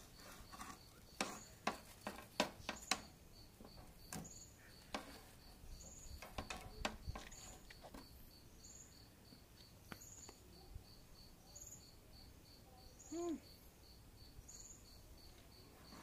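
Crickets chirping steadily, one kind in a fast even pulse and another with a short chirp a little more than once a second. Over them, a scatter of sharp clicks and knocks in the first half comes from a metal poker stirring the coals in a small braai grill, and a brief low hum is heard about thirteen seconds in.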